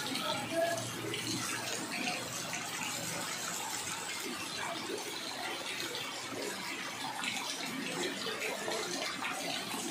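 Rain falling on a flooded street: a steady, even splashing of raindrops on standing floodwater.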